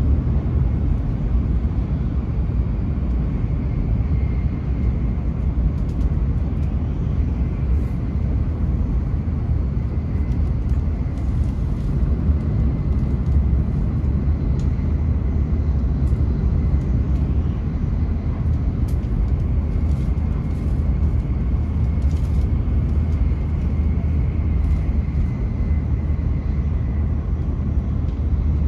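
Cabin running noise of a Hokuriku Shinkansen train at speed: a steady deep rumble with a faint high tone held under it.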